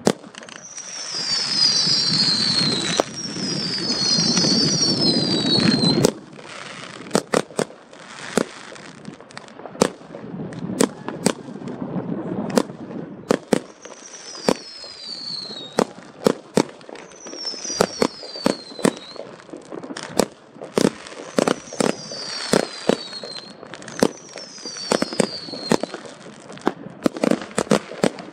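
Fireworks display: a dense, loud crackle of bursting shells that cuts off suddenly about six seconds in, then a run of sharp separate bangs, several a second. Falling whistles keep cutting through in pairs.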